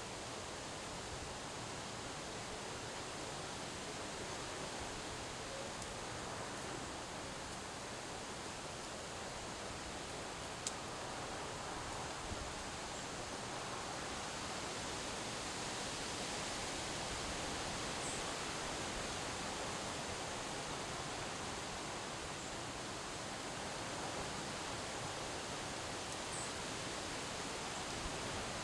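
Windstorm wind blowing through trees: a steady rushing noise with leaves rustling, swelling slightly about halfway through. A single sharp click about ten seconds in.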